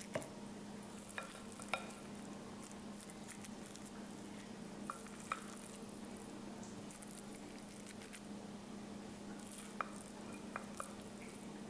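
Faint handling of raw meatloaf mixture: a wooden spoon scraping and tapping portions from a stoneware bowl into a stoneware loaf pan, with a few light clicks scattered through, over a steady low hum.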